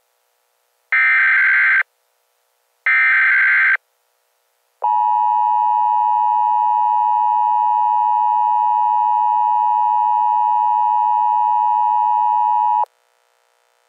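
Emergency Alert System activation for a flood warning: two short SAME data-header bursts about a second apart, then the steady EAS attention tone for about eight seconds, cutting off sharply near the end.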